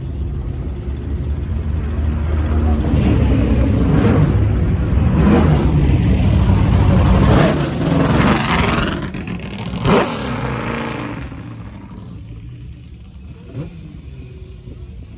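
Several historic sports-prototype and GT racing cars driving past one after another, their engines revving. The sound builds up, stays loud with several sweeps in pitch as cars go by, then fades away near the end.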